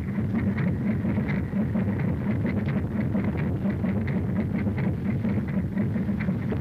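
Helicopter engine and rotor running steadily on the ground: a continuous low drone.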